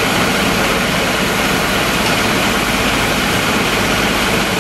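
Fire engine's diesel engine running steadily, driving its pump to feed the connected hoses.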